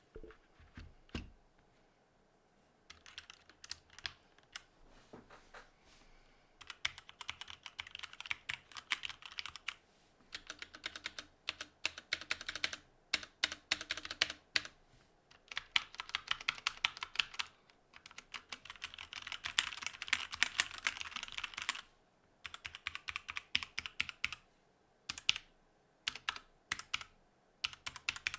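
Typing on a Me too ZERO mechanical keyboard with black linear switches. Quick runs of key clacks last a few seconds each, with short pauses between them; the first couple of seconds hold only a few stray keystrokes.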